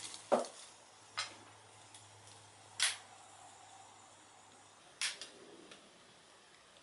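Four sharp clicks a second or two apart, the first with a duller knock, over a faint low hum. They come from handling the lighter and metal tray while black snake fireworks burn.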